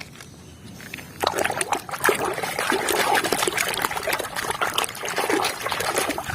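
Water trickling and splashing in irregular spurts, starting about a second in.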